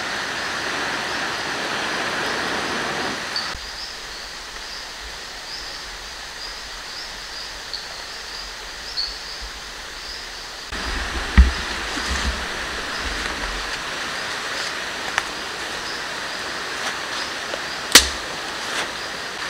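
Steady rush of running water, with small high chirps repeating through it. The water noise drops about three and a half seconds in and comes back louder near eleven seconds. A low thump just after that and a sharp click about a second and a half before the end are the loudest sounds.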